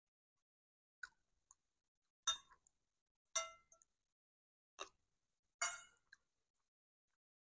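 A metal spoon and fork clinking and scraping against a plate while eating: about half a dozen short, ringing clinks spaced roughly a second apart.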